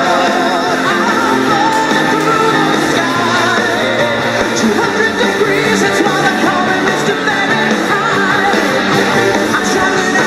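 A rock song with a singer and guitar, playing steadily throughout.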